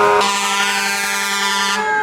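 Fire engine sirens: a fast yelp switches a fraction of a second in to a slow wail that rises steadily in pitch, over a steady tone that holds throughout.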